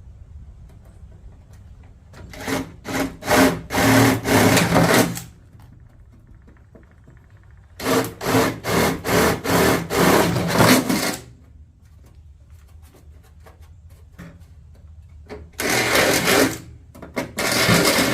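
Power drill running in three bursts of about three seconds each, drilling bolt holes in an aluminum storage box.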